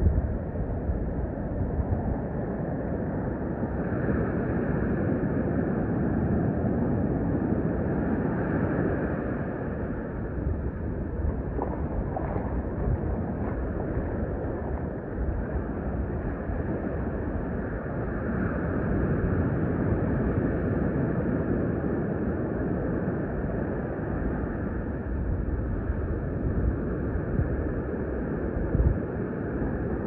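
Surf on the beach and wind noise on the phone's microphone: a steady rush that swells and eases slowly.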